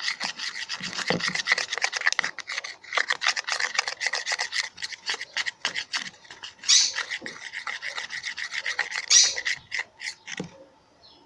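Rapid scraping and rubbing as a glue-and-activator slime mix is stirred in its container, with two louder swishes partway through. The slime has not set.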